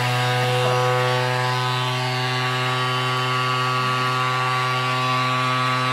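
Thermomix TM6 running at speed 9, its blade milling raw sugar into icing sugar: a loud, steady high-speed motor whine.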